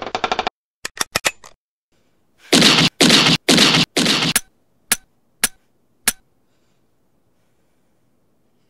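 Gunfire sound effects: a short rapid rattle and a few clicks, then four loud shots about half a second apart, followed by three sharper, shorter cracks.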